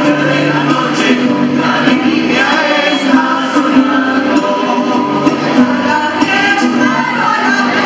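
Mixed choir of men's and women's voices singing a folk song in parts, accompanied by strummed guitar with a steady rhythmic beat.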